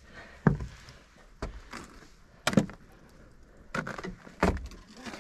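Footsteps in ski boots on wooden stairs and a wooden deck: about five unevenly spaced knocks.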